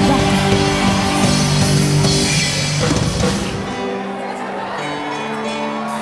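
Amplified live rock band (electric guitars, bass, drums and keyboard) playing loudly. About three and a half seconds in, the drums and low end drop out, leaving sustained chords ringing on.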